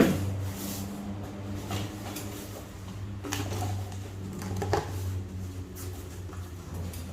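Packaging being handled during an unboxing: short rustles and light knocks a few times, over a steady low hum.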